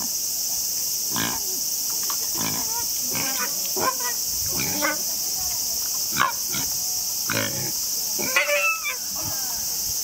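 A sow pig squealing in a string of short, shrill cries about a second apart, with the loudest burst of squeals near the end. She is protesting a boar nuzzling at her rear. A steady high hiss runs underneath.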